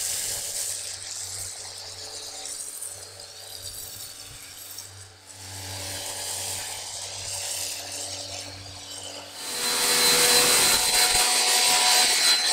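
Electric pressure washer running with a foam cannon spraying snow foam onto a car: a motor hum under the hiss of the spray. About nine and a half seconds in, a louder, harsher hiss of the water jet begins.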